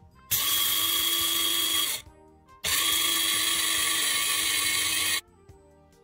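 Krups electric blade grinder grinding flaxseeds, running in two bursts with a short pause between. The first burst lasts about a second and a half, the second about two and a half seconds, each a steady high whirr that cuts off suddenly.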